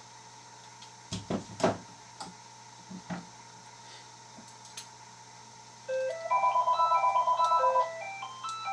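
A few sharp taps and knocks, then a loud electronic beeping melody of clean stepped tones, like a phone ringtone, for about three seconds near the end.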